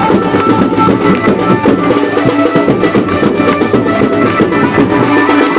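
Loud, steady dance music with drums.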